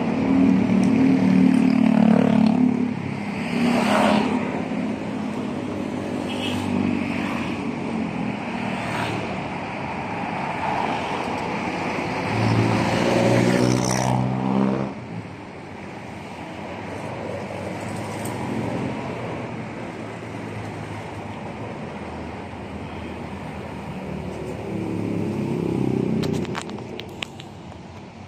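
Street traffic passing close by: a car engine goes past at the start, and a motor scooter passes about halfway through, the loudest moment, fading away after. Quieter traffic noise follows, with another small swell near the end.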